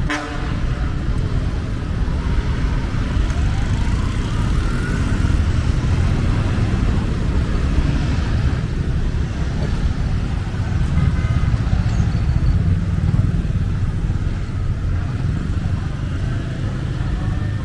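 Busy city street traffic: cars, trucks and motor scooters driving past, their engines and tyres making a steady low rumble.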